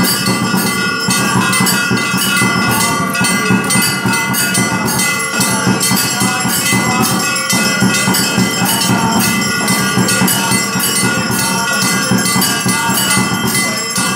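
Temple bells ringing rapidly and without pause during an aarti, a dense metallic clanging over several sustained ringing tones.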